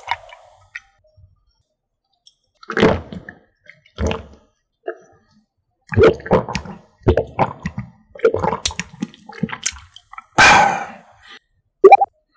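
A person drinking milk from a glass mug: a run of swallowing gulps, a few a second, then a loud breath out near the end and a short click.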